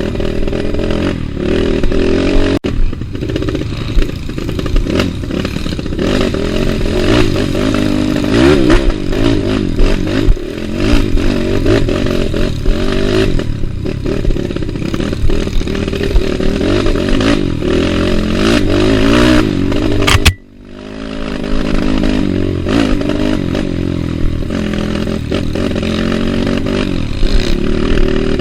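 Trail motorcycle engine running while being ridden, its pitch rising and falling with the throttle, with knocks and clatter from the bike over rough ground. The sound cuts out suddenly for a moment about two-thirds of the way through, then picks up again.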